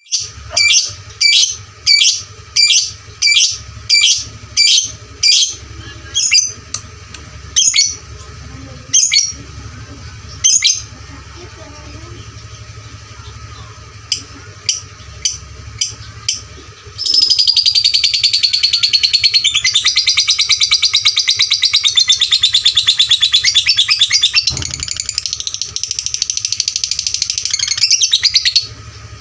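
Lovebird calling: sharp, shrill chirps repeated about one and a half a second, thinning out, then a long unbroken run of rapid chattering song that cuts off near the end.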